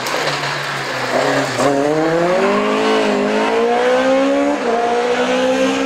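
Opel Kadett C Coupé rally car's engine pulling hard out of a corner. The revs climb steadily from about one and a half seconds in, drop at a gear change about four and a half seconds in, then climb again.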